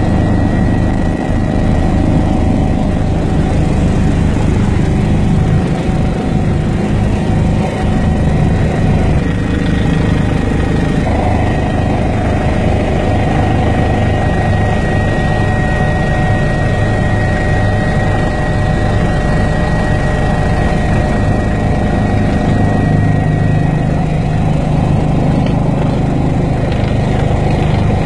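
Helicopter turbine engine and rotor running steadily, heard from inside the cabin, with a thin steady high whine over the drone.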